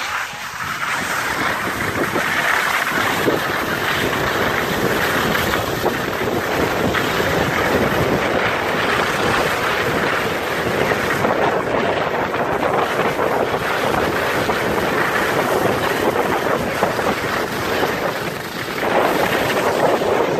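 Steady rush of wind over the microphone mixed with the hiss and scrape of sliding downhill over snow, building up over the first couple of seconds as speed picks up.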